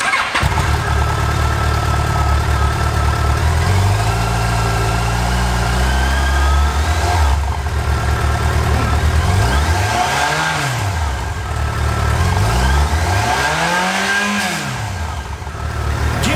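Yamaha FJR1300A's inline-four engine idling through its twin exhaust silencers, revved twice near the end with the pitch rising and falling each time.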